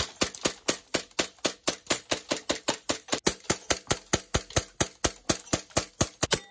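Green-gas blowback airsoft Glock pistols firing a fast, even string of sharp shots, about seven a second.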